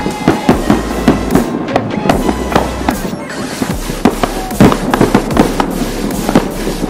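Aerial firework shells bursting in quick succession, a rapid run of sharp bangs and crackles, several a second, with the loudest bang about halfway through.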